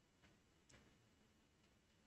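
Near silence with two faint, sharp clicks, about a quarter second and three quarters of a second in, from a computer mouse being clicked.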